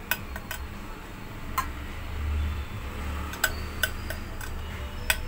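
A steel spoon clinks lightly against a stainless steel puttu tube as grated coconut is spooned in for a layer: scattered sharp metallic ticks, about seven in five seconds, over a low hum.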